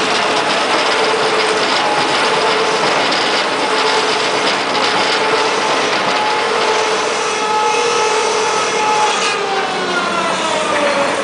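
MB Crusher BF120 crusher bucket on an excavator, running and crushing demolition rubble: a continuous rattling, grinding noise with a steady hydraulic whine. About nine seconds in, the whine falls in pitch.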